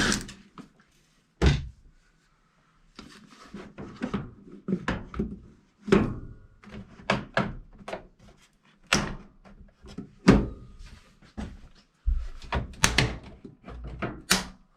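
Irregular knocks, thuds and clatters of a washing machine's plastic and metal cabinet parts being handled: the detergent drawer being pulled out and the top panel slid back by hand.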